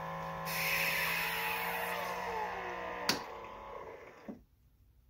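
Bartesian cocktail machine's pump humming as it draws water through the capsule and dispenses the drink, with a rushing hiss in the first couple of seconds. Near the end of the pour the hum falls in pitch and cuts off with a sharp click about three seconds in, followed by a fainter click: the end of the dispensing cycle.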